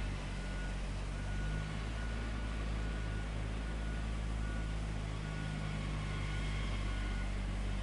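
Diesel engine of heavy road-paving machinery running steadily, with a reversing alarm beeping a short high tone about every two-thirds of a second.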